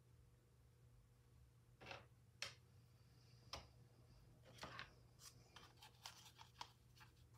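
Near silence with a faint steady hum, broken by faint scattered clicks and rustles that come more often after the halfway point.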